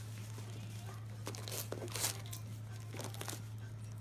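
A West Highland White Terrier ripping and crinkling wrapping paper off a present, a run of irregular rustles and short tears.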